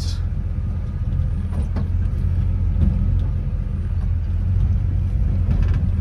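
1954 Chevrolet rolling slowly down a steep gravel driveway while its brakes are tested, heard from inside the cabin: a steady low rumble of the car, with a few faint clicks.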